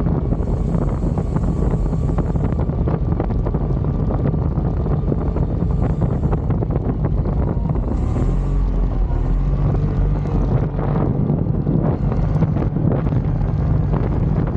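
CFMOTO CFORCE 850XC ATV's V-twin engine running on the move, with wind rushing over the microphone. The engine note changes about eight seconds in.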